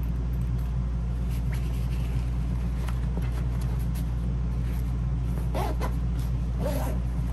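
A steady low hum throughout, with a few light clicks and rustles as a nylon sling bag is handled.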